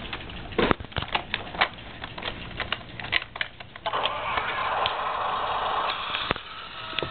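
Irregular sharp clicks and taps for the first few seconds, then about two seconds of rustling hiss, then a few more clicks.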